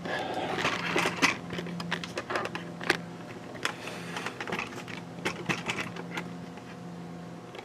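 Irregular light clicks, taps and knocks from the camera and its mount being handled and turned, over a steady low machine hum.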